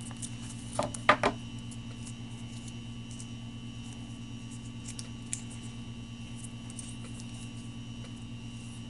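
Packaging being handled as the charging cable is taken out of an iPhone box: a few sharp clicks and rustles about a second in, then scattered faint ticks, over a steady low electrical hum.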